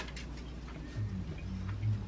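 Two soft low bumps, about a second in and near the end, as baked cheese-topped sweet potato halves are set down onto a salad plate. Faint light clicks and a steady low hum run underneath.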